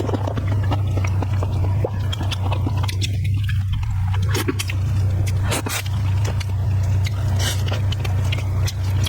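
Close-up eating sounds: a person chewing and biting food, with many short wet clicks of the mouth, over a loud steady low hum.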